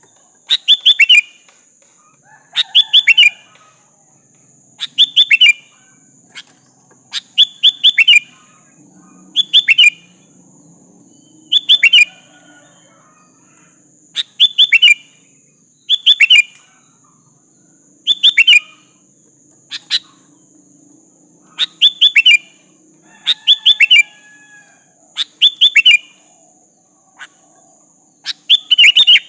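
Sooty-headed bulbul (kutilang) calling, a short phrase of quick falling notes repeated about every two seconds, over a steady high hiss.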